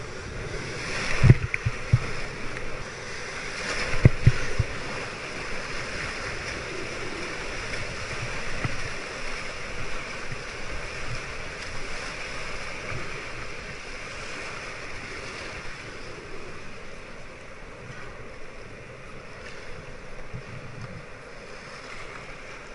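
Surf whitewater rushing around a kayak riding a broken wave, heard close up, with two loud rough surges about a second in and around four seconds. After them comes a steady hiss of foam that slowly eases.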